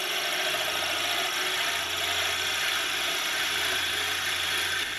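A drill bit in a wood lathe's tailstock chuck boring into a spinning bolly gum hardwood pen blank, giving a steady, harsh squealing noise over a low hum.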